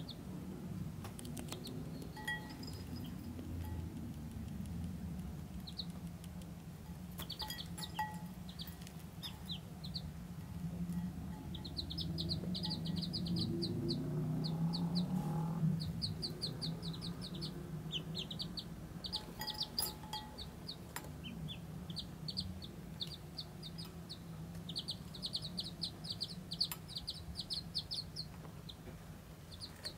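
Ducklings peeping: short, high chirps, scattered at first, then coming in quick runs from about a third of the way in.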